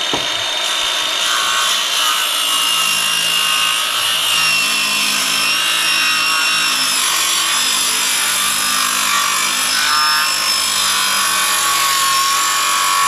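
Handheld circular saw cutting across the end of a 2-inch-thick cedar door in one long continuous cut, the blade running steadily through the wood under load with a high whine.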